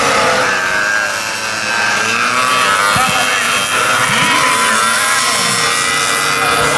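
Several pee-wee mini racing motorcycle engines buzzing and revving together as they race, their pitches rising and falling in overlapping glides through the corners.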